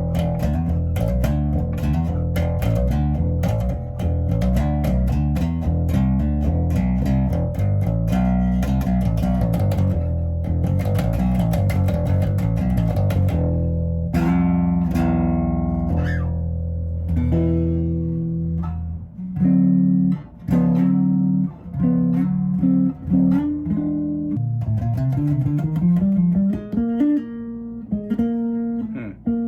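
Electric bass played solo through a bass amp, both pickups on with the selector in the middle position. It plays a fast, busy run of notes for about the first half, then separate notes with short gaps and a rising slide near the end.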